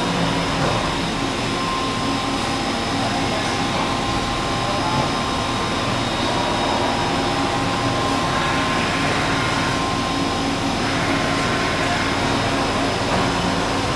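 Mori Seiki SH-50 horizontal machining center running, its spindle turning and table traversing: a steady mechanical whir with several held whining tones over a dense hiss, briefly changing in texture about eight and again about ten seconds in.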